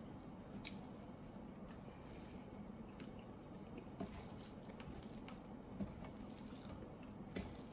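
Faint eating sounds: quiet chewing and a few soft clicks of a metal fork against a foil tray of pasta, over a low steady hum.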